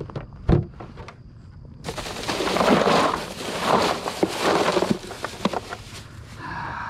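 Knocks, the loudest about half a second in, then about four seconds of loud, rough scuffling noise in surges with scattered clicks, as a freshly caught redfish is put into a cooler on the kayak.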